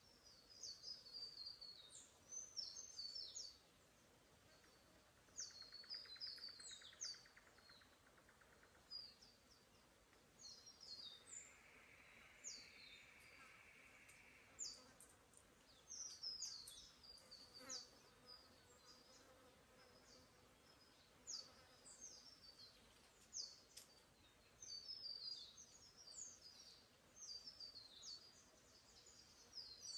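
Small forest birds chirping in short, high runs of notes again and again, over a quiet forest background. An insect buzzes past twice, briefly around six seconds in and again from about eleven to fourteen seconds.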